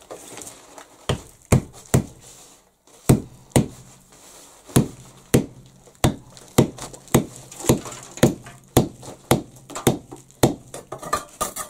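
Hammer blows driving a wedge into the wooden handle of a hand tool to fix its head tight: about twenty sharp knocks, roughly two a second, starting about a second in.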